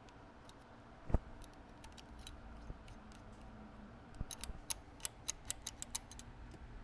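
Small metal clicks and taps from a screwdriver and small parts inside the stripped receiver of a Winchester Model 42 shotgun. There is one louder knock about a second in, then a run of sharp clicks, several a second, in the second half.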